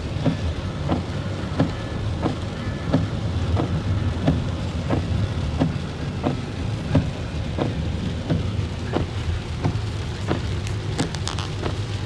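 Heavy rain falling steadily, over a low continuous rumble, with a regular tick about one and a half times a second and a brief crackle near the end.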